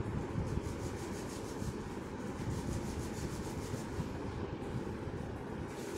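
Steady background noise: a low rumble with a fainter hiss over it, level throughout.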